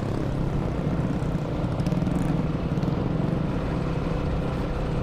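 Yamaha NMAX scooter engine running steadily under a low rumble of wind on the camera microphone.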